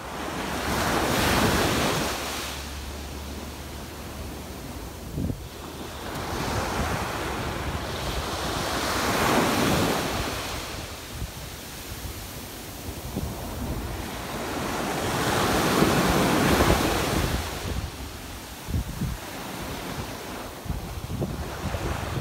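Small surf breaking and washing up a sandy beach at the water's edge, with three waves surging in and fading away. Wind buffets the microphone with a few low thumps.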